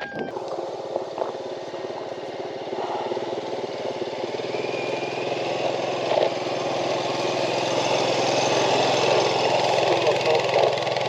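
An engine running steadily, getting gradually louder.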